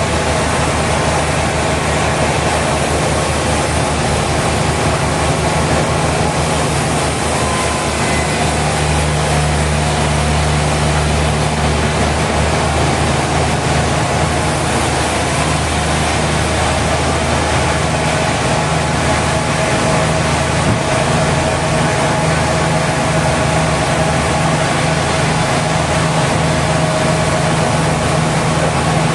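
Sawmill machinery running steadily: a loud, constant low engine drone with a dense, even noise of the saw over it.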